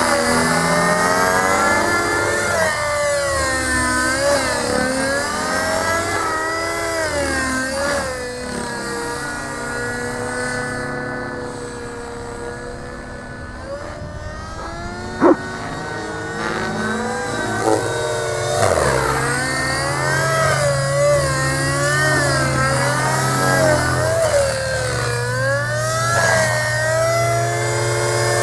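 Gaui NX4 radio-controlled model flying, its rotors whining and the pitch swinging up and down constantly as the throttle changes during manoeuvres. The sound grows fainter through the middle as the model climbs high, with a single sharp click about halfway through.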